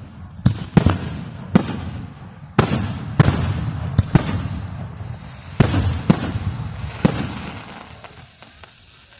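Fireworks going off in a rapid volley: about ten sharp bangs, each with an echoing tail and crackle, coming irregularly a fraction of a second to a second apart, then dying away near the end.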